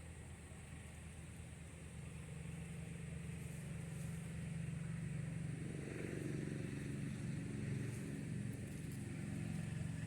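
Low, steady motor-vehicle engine rumble that grows louder over the first half and then holds.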